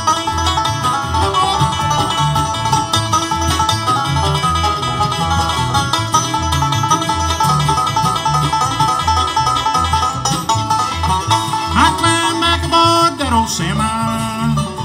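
Live country band playing an instrumental break: acoustic guitars and other plucked strings over a steady, even bass line, with sliding notes near the end.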